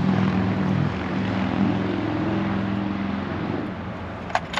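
An engine running with a steady low drone, its pitch rising a little partway through before it fades. A couple of sharp metallic clicks come near the end.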